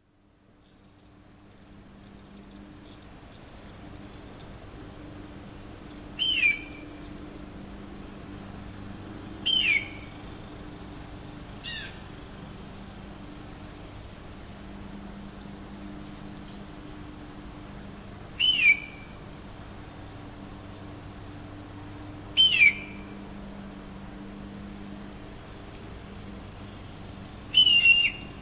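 Hawk screaming in short, high, downward-gliding calls, about five of them several seconds apart. Under the calls runs a steady high-pitched insect buzz that fades in at the start.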